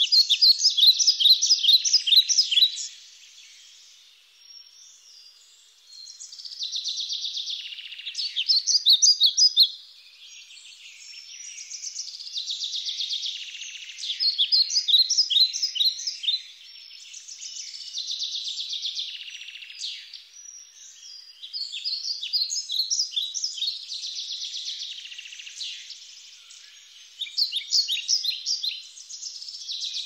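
Forest ambience of high-pitched chirping: runs of rapid pulses, each lasting two or three seconds, recurring every few seconds.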